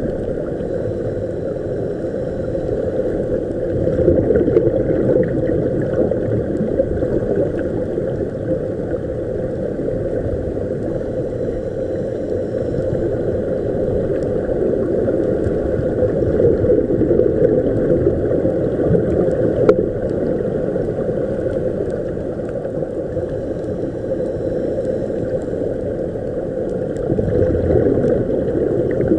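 Muffled underwater noise: a steady low rumble with gurgling air bubbles, swelling a little a few times.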